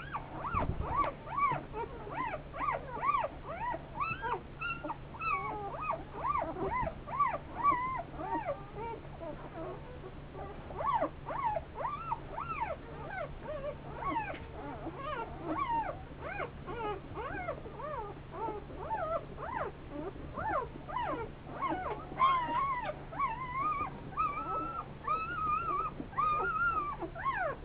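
A litter of day-old puppies squeaking and whimpering while nursing at their mother: many short, high, rising-and-falling squeals overlapping, several a second, without a break.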